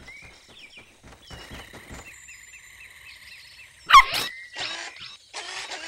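Cartoon puppy giving a single short bark about four seconds in, over a faint run of quick chirps before it and a few short noisy bursts after.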